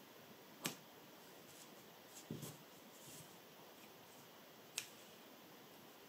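Fiskars stainless-steel scissors snipping loops of sewing thread: two short, sharp clicks about four seconds apart, with a softer sound of handling between them, against near silence.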